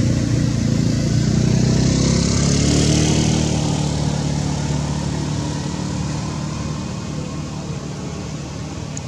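A motor vehicle's engine running, growing louder to a peak about two to three seconds in and then slowly fading, as a vehicle passing by would.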